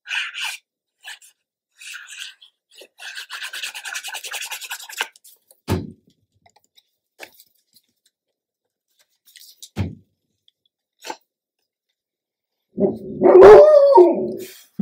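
A dog gives one loud, drawn-out bark that bends in pitch, lasting about a second and a half near the end, alerting to a noise it has heard. Before it come soft rubbing and scraping of paper being pressed and glued down, and two light taps.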